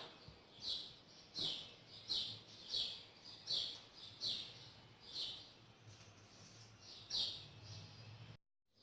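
A bird chirping over and over, a short high chirp sliding downward about every two-thirds of a second, with a faint low hum beneath; the sound cuts out abruptly near the end.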